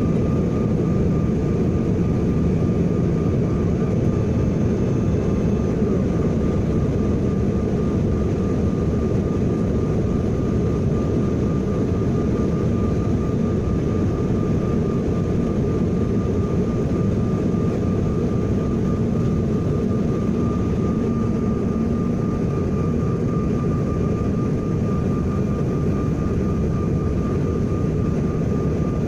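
Steady jet engine and airflow noise inside the passenger cabin of a Bombardier CRJ1000 regional jet, a low, even rumble with a thin steady whine above it.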